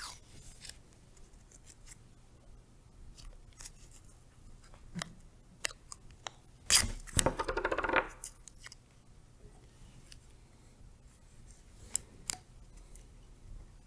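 Blue painter's tape being pulled off its roll with a short ripping sound about seven seconds in, among scattered small clicks of handling the tape and a cordless drill.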